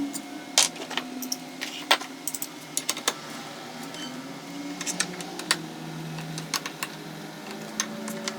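Irregular sharp metallic clicks and taps of hand tools and bolts as the starter clutch is bolted back onto the motorcycle's rotor, over a faint steady hum.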